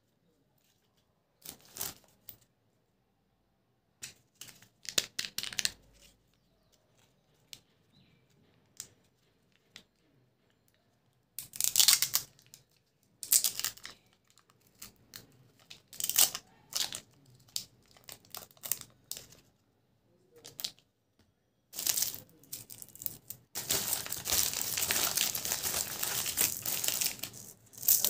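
Foil lid being peeled and torn off a plastic chocolate tray in short separate tearing and crinkling bursts. In the last few seconds a wrapper crinkles without a break.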